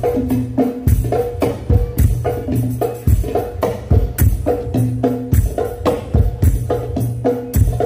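Hadroh hand drums, skin-headed drums and rebana frame drums, played by hand through microphones in a fast, continuous rhythm. The drumming mixes sharp slaps with deep, ringing bass strokes.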